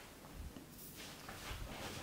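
Faint, soft rustling of hands moving over hair and scalp in a head massage, with two dull low thumps.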